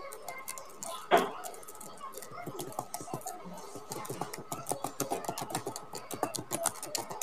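Small hard clicks and taps of hand tools against a smartphone's parts during repair work, with one louder clack about a second in and quick runs of clicks after.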